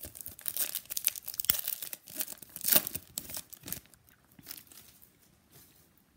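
Foil wrapper of a 2015 Contenders Draft Picks football card pack being torn open and crinkled: a run of crackling rips over the first four seconds, loudest near three seconds in, then fainter rustling as the wrapper is handled.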